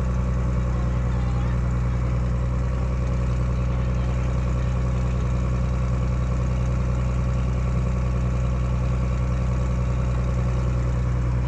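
Passenger boat's engine running steadily under way, a low, even hum that holds the same pitch throughout.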